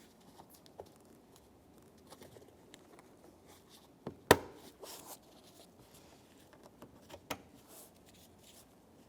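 Plastic interior door trim piece being handled and fitted into the door panel: light plastic clicks and rustles, with one loud sharp snap about four seconds in and another click a few seconds later.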